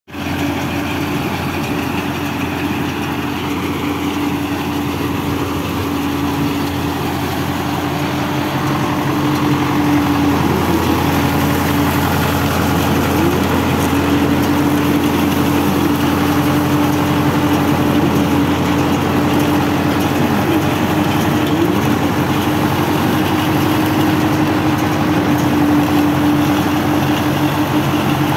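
Tractor diesel engine running steadily while driving a PTO-powered mini round baler as it picks up crop residue, the baler's machinery adding a constant hum. It grows a little louder about ten seconds in.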